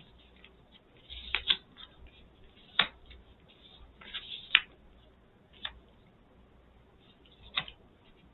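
Trading cards being handled and set down on a table: scattered light clicks and taps, about six in all, with a brief rustle of cards.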